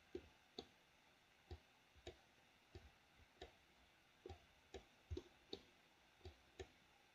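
Computer mouse clicking: about a dozen faint, short clicks at irregular intervals, roughly two a second, as paint is dabbed on in a 3D texture-painting program.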